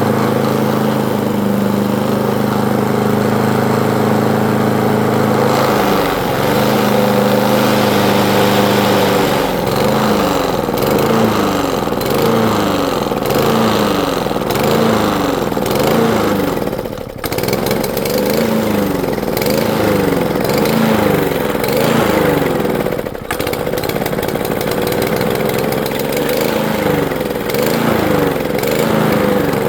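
Lawn mower engine running, steady at first; from about a third of the way in its speed rises and falls roughly once a second, with two brief dips.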